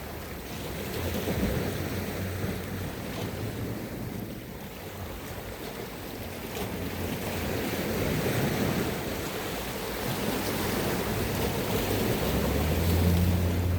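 Sea waves washing against the shore, with wind buffeting the microphone; the sound swells and eases. Near the end a low, steady engine hum comes in over the surf.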